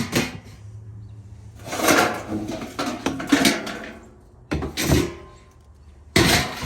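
Stored items being handled and moved about during a clean-up: a series of about five scraping, rustling knocks, each a second or so long.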